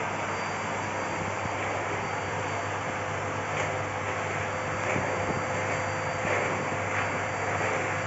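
Bosch BGS21X320 bagless canister vacuum cleaner running steadily, a constant whine over the rush of air, as its floor nozzle is pushed back and forth over a laminate floor.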